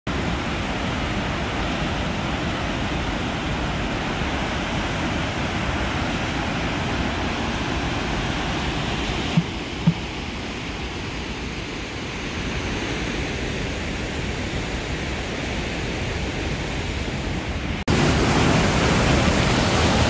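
The Rhine Falls rushing: a steady, even noise of churning white water. Two brief bumps come near the middle. Near the end it jumps abruptly louder and brighter, heard from right beside the falling water.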